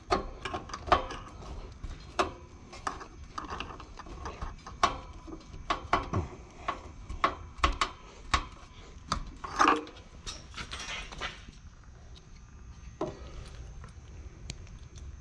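Hand screwdriver working screws on the sheet-metal chassis of a Fahrenheat wall heater: a run of irregular light metallic clicks, taps and scrapes, with a louder clatter a little before ten seconds in.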